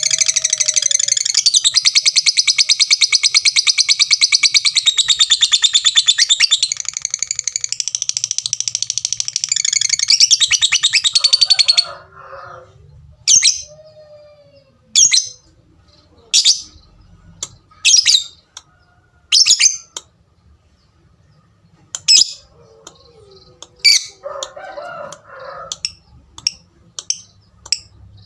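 Lovebird giving a long, unbroken run of rapid high chattering (the 'ngekek'), which stops abruptly about twelve seconds in. It then gives single sharp 'tik' chirps about every one and a half seconds, coming quicker near the end.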